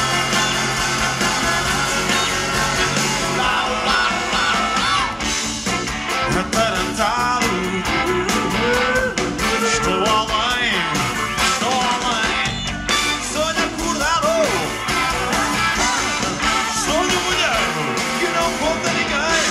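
Live band with electric guitars, drums, saxophone and trumpet playing a song, loud and steady. From about four seconds in, a lead melody line slides up and down over the band.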